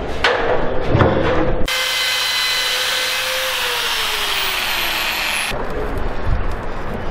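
Metalworking and woodworking tools in quick succession: a moment of power-tool and handling knocks, then about four seconds of a steady hiss with a high whine from an arc or cutting tool, then the crackle of MIG welding on steel.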